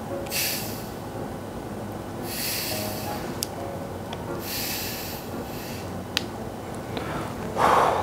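Gas hissing out of a plastic bottle of carbonated lemon-lime soda (Chilsung Cider) in three short bursts as its cap is twisted open bit by bit, with a few small clicks from the cap.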